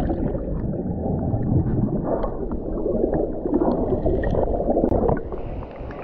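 Muffled underwater rushing and bubbling of water churned by a person plunging into a pool, heard from a submerged camera. About five seconds in it quietens, and clearer sound returns as the camera breaks the surface.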